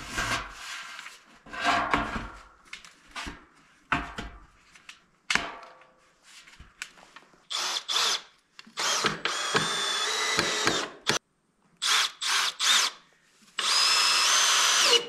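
Cordless drill running into the wooden frame in several short bursts and two longer runs with a steady whine, the last one changing pitch partway through. Before it come a few knocks and clunks as the metal drum and the wooden frame are handled.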